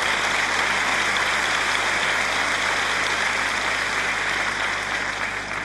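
Large audience applauding steadily, dying down near the end.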